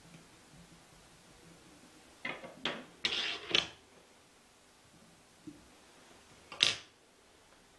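Handling sounds of fly-tying tools and materials at the vise: a short run of rustles and scrapes about two to three and a half seconds in, then a single sharp click near the end.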